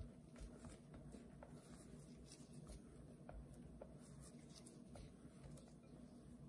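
Faint, irregular scraping and light tapping of a silicone spatula against a glass mixing bowl while folding meringue and sifted almond flour into macaron batter (macaronage).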